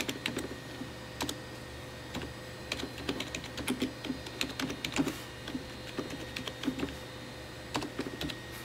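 Computer keyboard being typed on in short, irregular runs of key clicks with brief pauses between, over a faint steady hum.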